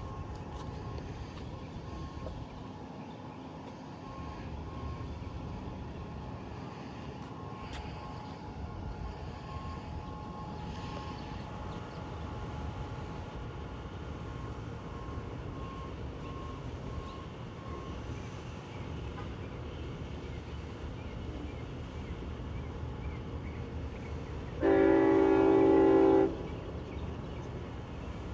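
Train horn sounding one loud steady blast of about a second and a half near the end, over a steady low rumble of a train.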